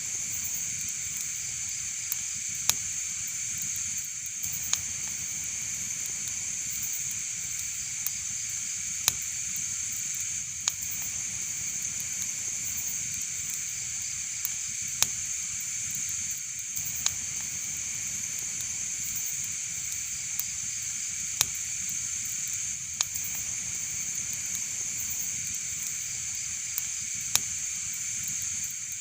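Wood fire in a fireplace crackling: a steady hiss with sharp pops every couple of seconds.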